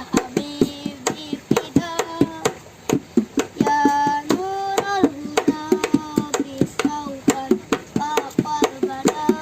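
A boy singing a melodious tune with long, wavering held notes, over a steady beat of sharp hand-struck taps a few times a second.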